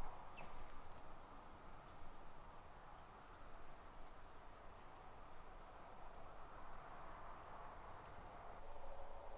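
Faint outdoor evening ambience: an insect chirping in a steady rhythm, about two chirps a second, over a low hiss.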